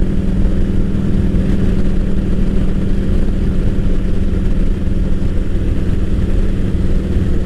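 Motorcycle engine running steadily at a loud level, a constant hum over an uneven low pulsing.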